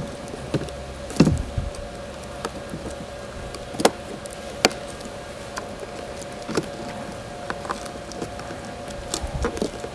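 Scattered plastic clicks and taps of fingers pressing down on a Panasonic Toughbook CF-30 replacement keyboard to seat its connection tabs, over a faint steady hum.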